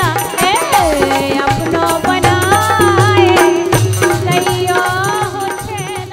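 Bundeli folk song music: a bending melodic line over steady drum and rattle percussion, fading out near the end as the song finishes.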